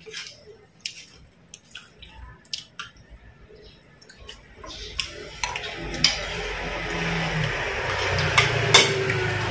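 Spoons and forks clinking and scraping against ceramic bowls and plates during a meal, in scattered light clicks. About halfway through, a steady rushing noise with a low hum grows louder and drowns them out.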